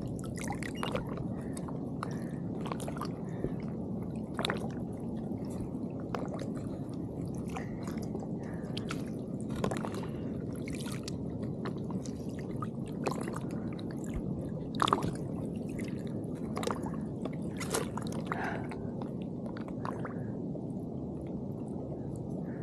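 Shallow bay water lapping and sloshing around an angler standing waist-deep in it, with scattered small splashes and clicks, the loudest about fifteen seconds in and again a couple of seconds later.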